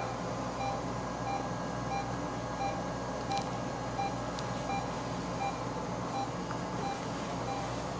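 Patient monitor beeping steadily, a short electronic beep about every half second, over a low steady room hum, with a couple of faint clicks midway.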